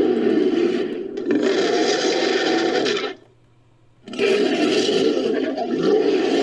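Creature roar sound effect for a dragon, made by layering dragon and monster roars: a long roar that breaks briefly near one second and stops just after three seconds, then a second long roar starting about a second later.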